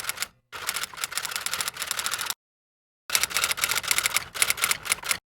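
Rapid mechanical clicking in two runs of about two seconds each, each cut off abruptly into dead silence.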